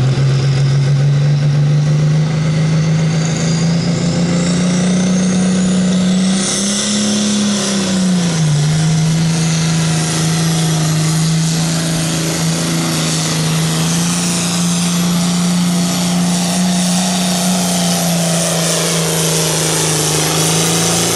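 Altered stock pulling tractor's diesel engine held at high revs under full load during a pull. The engine note climbs slowly, rises further, then dips about eight seconds in and runs steady after that, with a high whine rising over the first six seconds.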